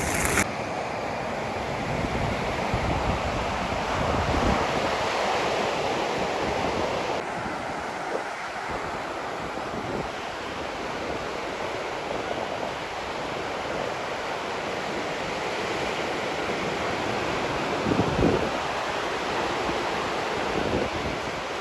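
Ocean surf washing steadily on a beach, mixed with wind on the microphone.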